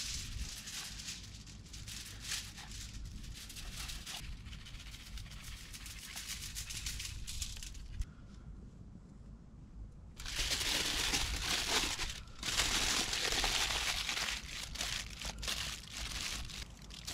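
Aluminium foil crinkling as it is handled and folded around a fish, with two longer, louder stretches of crinkling a little past the middle.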